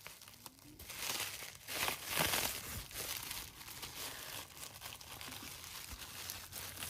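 Packaging crinkling and rustling as it is handled and unwrapped by hand, in uneven bursts that are loudest about one to two seconds in.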